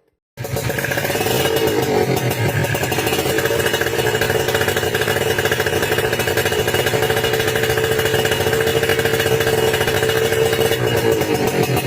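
Kawasaki Ninja R/RR 150cc two-stroke twin running steadily through an aftermarket racing exhaust, a fast, even pulse. The sound cuts in abruptly about half a second in.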